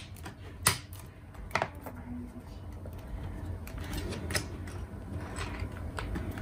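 Plastic retaining clips of a laptop's bottom panel snapping into place as the panel is pressed down around its edge: a few sharp, separate clicks.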